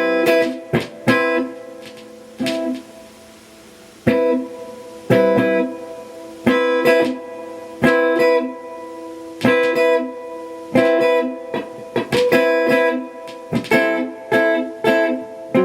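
2021 Gibson Les Paul Standard electric guitar played in repeated struck chords and notes, each attack starting with a sharp click and then ringing. The click is the unexplained clicking noise that the owner is trying to find.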